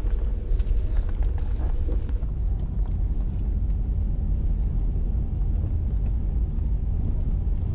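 Toyota Celica GT convertible driving at low speed: a steady low rumble of engine and road noise, heard from inside the car. About two seconds in the hiss above the rumble drops a little.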